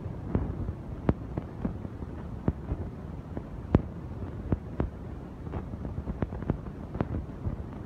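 Irregular sharp knocks of metal on a steel square-tube frame, about two a second and some louder than others, over a steady low background noise.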